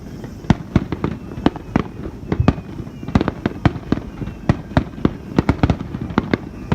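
Fireworks going off in a rapid barrage: sharp bangs at irregular intervals, several a second.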